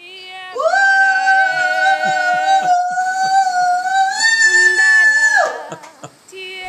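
A woman ululating in celebration (a zaghrouta, the joyful cry that greets good news): a high, steady cry held about two seconds, a brief breath, then held again for nearly three seconds before it dies away.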